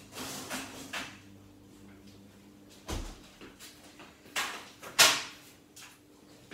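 A refrigerator's bottom freezer drawer slides out and is pushed shut with a low thud about three seconds in. Then come two sharp, louder handling noises at the kitchen counter, the second the loudest.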